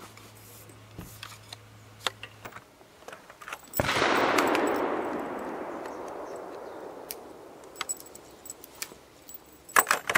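Light metallic clicks and taps from handling an antique flintlock rifle during loading and priming. About four seconds in comes a sudden loud rush of noise that fades away slowly over the next four seconds or so.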